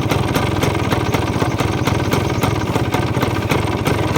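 Yamaha DT 175's two-stroke single-cylinder engine idling low and steady, with a fast, even run of firing pulses. The idle is set just above the point where it would stall.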